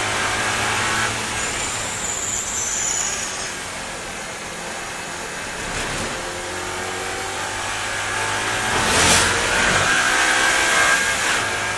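Audi race car's engine heard from inside the cockpit at racing speed, its note rising and falling as the driver brakes and accelerates, over road and wind noise. A short loud burst of noise cuts through about nine seconds in.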